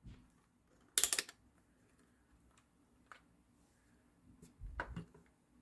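Light clicking and clatter from small objects being handled: a quick cluster of clicks about a second in, one faint click around three seconds, and a soft low bump near the end.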